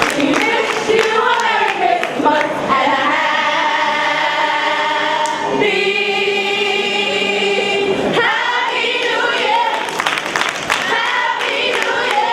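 Teen gospel choir singing, apparently unaccompanied, holding one long chord in the middle before the singing moves on again.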